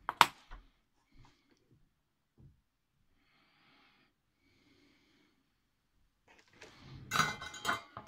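Handling noise from soldering a car radio wiring harness: a sharp tap at the start, a few small knocks, faint breathing twice in the middle, then a louder rustling clatter of wires and tools near the end.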